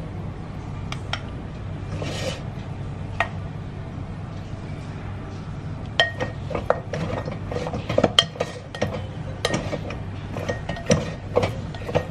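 Kitchen utensil clinking and scraping against a ceramic bowl: a few scattered clicks at first, then a quick irregular run of sharp clinks in the second half. A steady low hum sits underneath.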